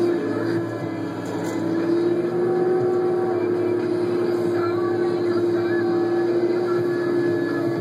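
Caterpillar 559 knuckleboom log loader heard from inside its cab: the diesel engine and hydraulics running under load as the boom swings a log in its grapple, with a steady whine that rises slightly in pitch about two seconds in and then holds.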